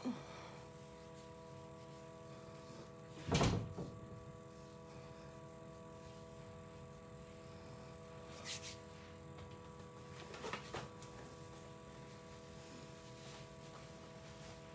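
Quiet room tone with a steady hum, broken by a single loud thump about three and a half seconds in and a couple of faint brief noises later on.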